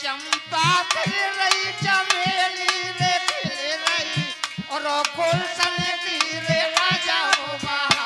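Dholak drum played by hand in a steady folk rhythm, with a harmonium melody held over it.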